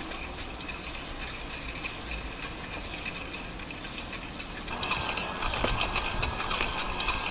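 Steady outdoor street background noise. About two-thirds in it becomes louder, with a run of quick clicks and rattles.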